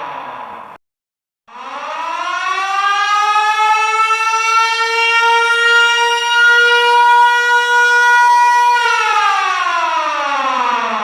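Military alarm siren with a wailing, air-raid-style rise and fall. A falling wail cuts off about a second in. After a short gap the siren winds up over a couple of seconds, holds a steady high tone for several seconds, then winds down again near the end.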